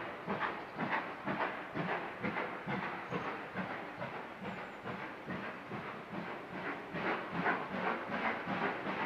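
GWR Hall class two-cylinder 4-6-0 steam locomotive 6990 "Witherslack Hall" working a train, its exhaust beating steadily about twice a second over a background of steam hiss, growing a little louder about three quarters of the way through.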